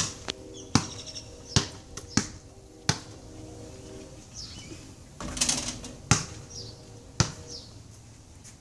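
Basketball bouncing on a concrete driveway: five dribbles under a second apart in the first three seconds, then a pause. A short rushing noise just past midway is followed by two more single bounces.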